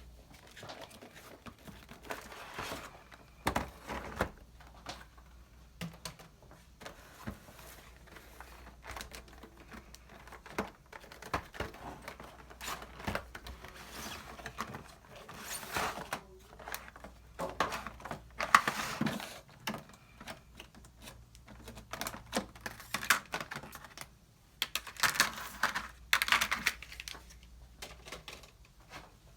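Small objects being handled: irregular clicks, taps and rustling, with louder clusters of clattering from time to time.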